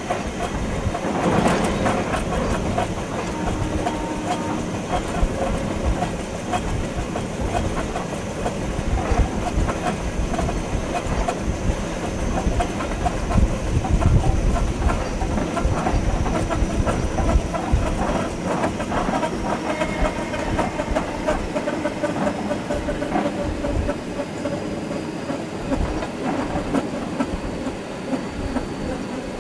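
Electric passenger train running along the line, heard from the driver's cab: a steady rumble of wheels on rails with clicks and knocks over rail joints, and a faint high whine that slowly falls in pitch.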